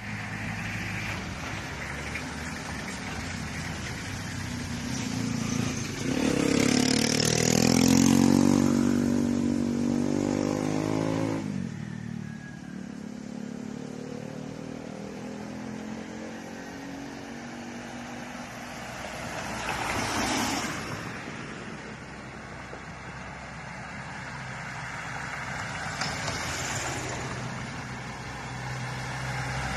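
Road traffic: a vehicle engine rises steadily in pitch as it accelerates past, the loudest sound, and cuts off abruptly; later two more vehicles go by, each a brief swell of noise.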